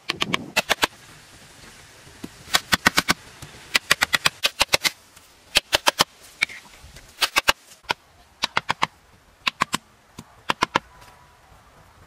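Stone knocking on stone in quick bursts of several sharp taps, repeating every second or two: pebbles being tapped down into wet mortar with a hand-held rock.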